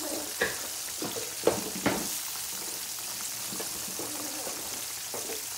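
Battered tilapia fillets deep-frying in oil in an electric skillet: a steady sizzle, with a few sharp clicks in the first two seconds.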